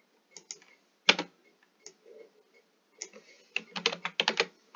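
Computer keyboard keystrokes: a few separate key clicks in the first two seconds, the loudest about a second in, then a quick run of keystrokes from about three seconds in, as lines of code are copied and pasted.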